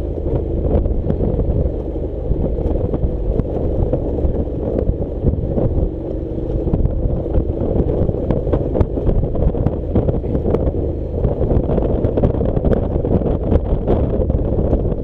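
Motorcycle riding along a rough gravel track: a steady low engine rumble mixed with wind buffeting the microphone, broken by frequent short clicks and knocks from the stony surface.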